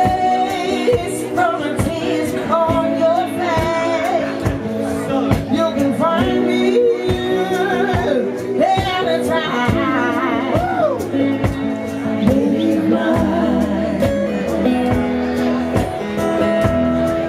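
Live band playing a slow, blues-tinged song: a singer's wavering, wordless vocal lines over guitar and drums.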